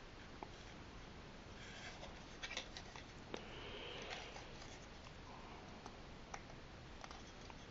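Faint clicks and light rubbing of small plastic toy parts being handled, as the wings of a Micro Galaxy Squadron Darth Vader's TIE Advanced toy are fitted on and turned over. The clicks come scattered, a few sharper ones a couple of seconds in.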